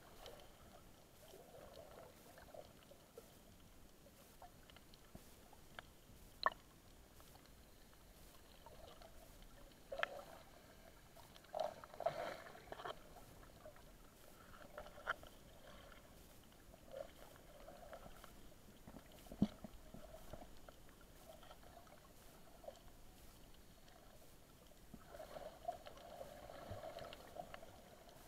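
Faint, muffled underwater ambience heard through a submerged camera, with scattered sharp clicks and a few gurgling swirls of water, and a louder stretch of water noise near the end.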